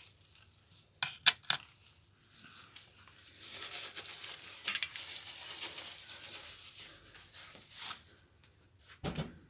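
Pennies clinking against a metal bowl: three sharp clinks about a second in, the middle one loudest, then softer scraping and a few lighter clicks as the coins are handled.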